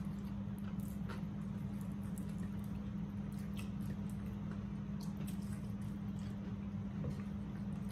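Close-up eating sounds: soft chewing, mouth smacks and small clicks of people eating fried chicken, over a steady low hum.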